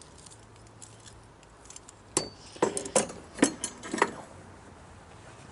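Loose metal tools and hardware clinking and knocking against each other as they are handled: a quick run of about half a dozen sharp clinks, from about two seconds in until about four seconds in.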